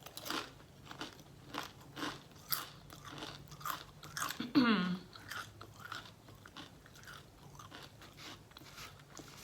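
Close-miked chewing of crunchy food, with crisp crunches about twice a second that grow softer in the second half. About halfway through comes a short vocal sound that falls steeply in pitch, the loudest moment.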